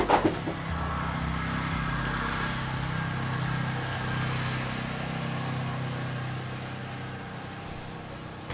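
A motor vehicle's engine running steadily, fading slowly toward the end, after a single knock at the start.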